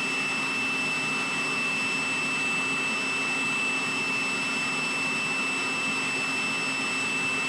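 Blower running steadily: a constant rush of air with a high, steady whine from its motor.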